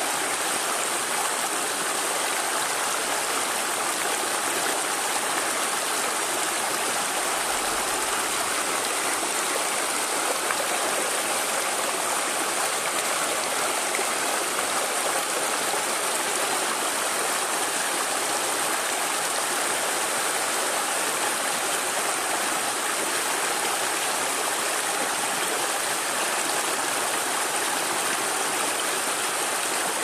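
Shallow, rocky mountain stream flowing over stones and pebbles: a steady, even rush of water.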